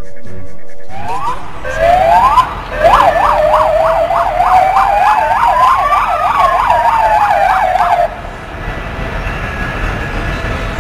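Emergency vehicle sirens: a rising wail starts about a second in, then a fast yelp pulsing about three times a second overlaps a slow wail that climbs and falls. Both cut off together about eight seconds in.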